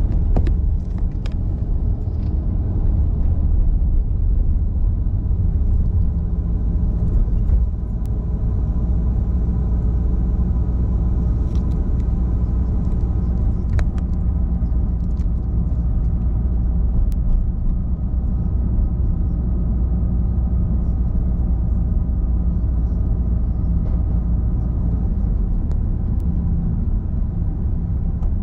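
Steady low rumble of a car being driven: engine and tyre-on-road noise, with a few faint clicks.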